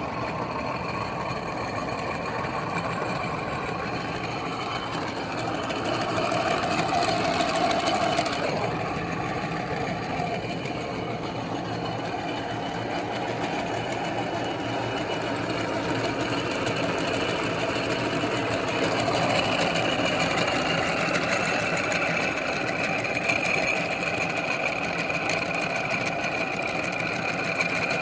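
Electric meat grinder running steadily while grinding bubble gum, a motor whine with churning underneath that swells a little in loudness twice, about six seconds in and again about two-thirds through.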